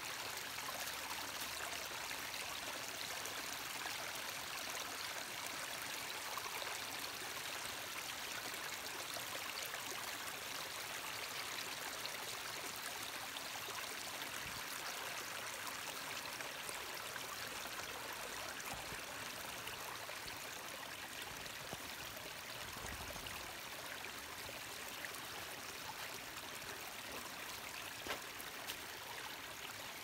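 A woodland brook babbling steadily: water running over and around the sticks of a beaver dam, an even rushing trickle throughout.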